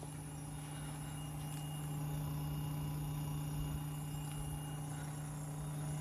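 Residential outdoor air-conditioner condenser units running in cooling mode: a steady compressor hum under the whoosh of the condenser fans, getting louder about two seconds in.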